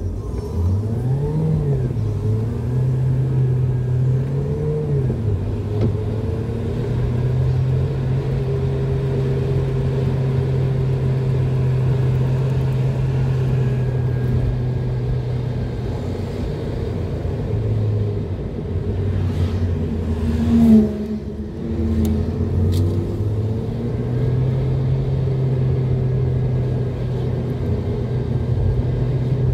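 Car engine heard from inside the cabin, pulling away with its pitch rising and dropping twice in the first few seconds, then running steadily at a cruising pace. Past the middle the pitch drops for a few seconds, with a brief louder sound about two-thirds of the way through, before steady running resumes.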